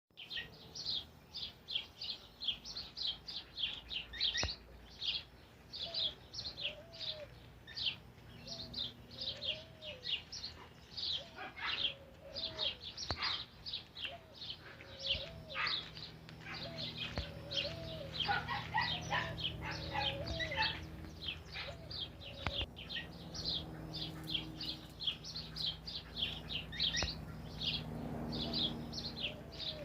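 Several birds chirping and singing together, a dense run of quick high chirps throughout, with a lower, repeated short up-and-down call joining in for a stretch in the middle.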